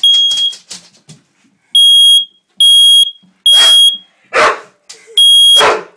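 Smoke alarm going off in short, high-pitched beeps, about five of them, unevenly spaced. A dog barks loudly twice near the end, with a weaker call just after the first beep.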